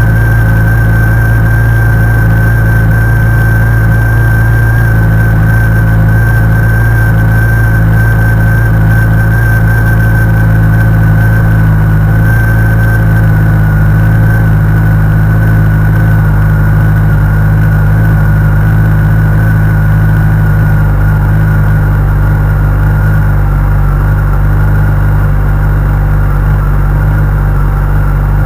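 Honda CBR1100XX Super Blackbird's inline-four engine idling steadily from a cold start, with its cam chain tensioner newly replaced. A thin high whine sits over the idle and eases slightly lower in pitch.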